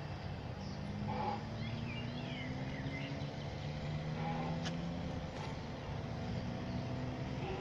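Outdoor ambience: a steady low rumble of distant traffic, with birds chirping through the first few seconds. A single short click comes a little past the middle.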